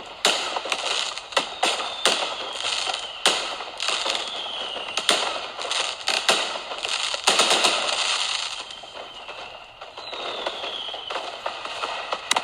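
Fireworks sound effect: a steady run of sharp bangs over continuous crackling, with a few short whistles falling in pitch.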